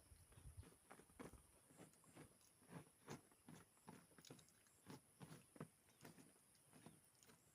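Faint, close-up chewing of food by a person eating, with short crunchy bites coming about three times a second.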